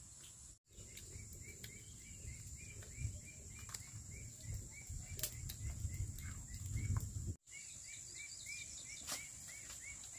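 A bird repeats a short chirp over and over, about four times a second, over a steady high insect drone and a low rumble on the microphone. The sound drops out briefly twice.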